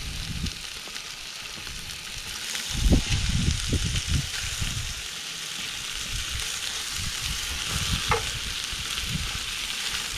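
Chicken thighs and sliced andouille sausage sizzling in a cast-iron Dutch oven, a steady hiss, with a few low knocks about three to four seconds in.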